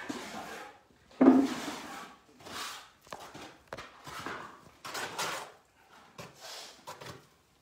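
A run of short scraping or rubbing strokes at an uneven pace, with a louder one about a second in.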